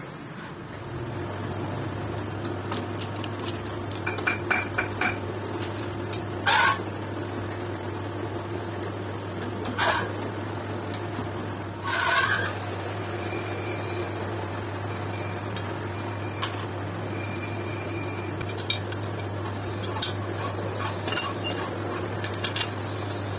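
Drill press motor running with a steady low hum while small steel parts clink and rattle against each other and the metal table, with a few brief squeaks around the middle.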